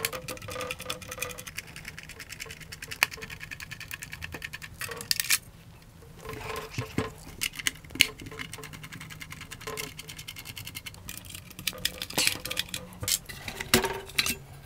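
T9 Torx screwdriver undoing small screws from a car head unit's sheet-metal case: rapid runs of small ticking clicks as the screws turn out, with sharper metallic clinks as screws and the steel cover are handled, the cover lifted near the end.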